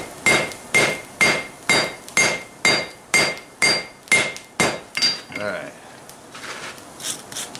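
Four-pound hand hammer striking a welding-hot layered steel billet on an anvil, about two blows a second, each with a clear ring from the anvil; the blows stop about five seconds in. The hits sound solid, which the smith hopes means the layers are forge-welding together.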